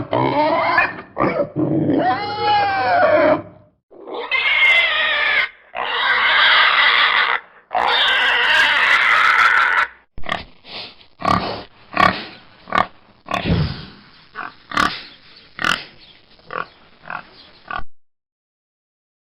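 Domestic pig vocalising: wavering squeals at first, then three long, harsh squeals of about a second and a half each, followed by a run of short, quick grunts that stops about a second before the end.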